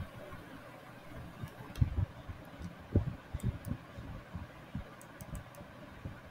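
Faint background hiss with irregular soft low thuds and a few light clicks.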